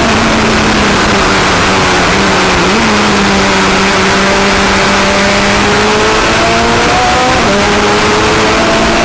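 Juno SSE sports racing car's engine under way at speed, heard from the open cockpit under heavy wind and road noise. The engine note climbs steadily and drops sharply about seven and a half seconds in, as at a gear change, then climbs again.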